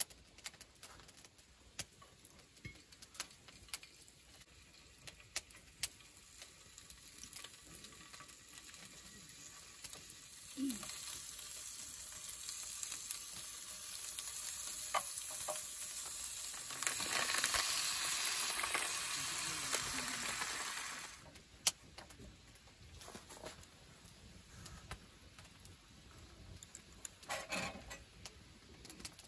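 Sliced meat sizzling as it fries in a steel frying pan on a camp stove and is stirred with chopsticks. Light clicks and taps come first; the sizzle starts about ten seconds in, grows louder, and cuts off suddenly about two-thirds of the way through.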